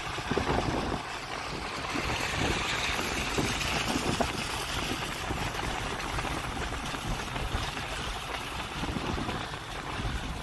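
A steady rushing noise with an irregular low rumble; no music or speech.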